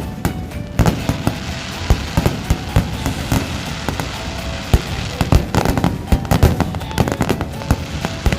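Fireworks going off: a fast run of bangs and pops, with a dense crackling hiss through the middle and more bangs near the end.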